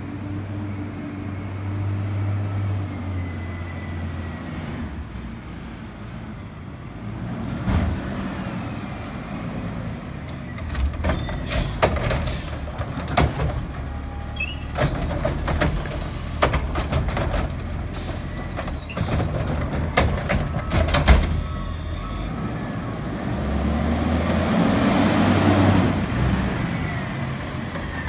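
Diesel front-loader garbage truck with a carry-can arm, its engine running throughout. About ten seconds in there is a high squeal, then about ten seconds of clanks and bangs as the arm lifts, shakes and sets down a yard-waste cart. Near the end comes a long loud hiss of air.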